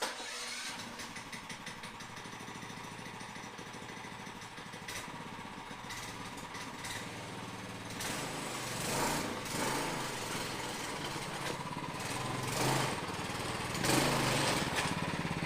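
Go-kart's Tillotson 212 single-cylinder four-stroke engine running, getting louder in several swells over the last half.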